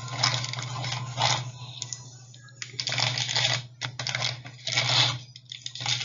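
Small plastic toy pieces and packaging being handled, making crinkling and clicking noises in irregular bursts, over a steady low hum.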